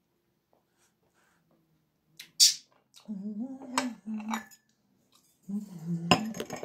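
Tableware knocking and clinking on a table as things are moved by hand, with a short sharp hiss about two and a half seconds in and a cluster of knocks near the end. A few wordless vocal sounds come in between.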